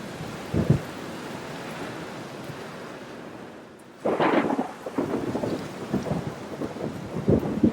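Rain on window glass: a steady light rain hiss, with one low thud under a second in. After a short dip at about four seconds, big drops start hitting in an irregular patter of low thuds, several a second.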